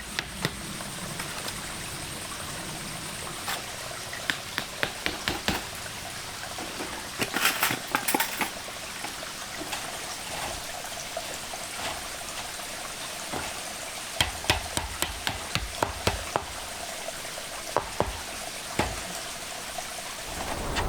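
Steady rushing noise, like running water, with many sharp clicks and knocks over it, including a quick rattling run about a third of the way in and a denser string of knocks later on.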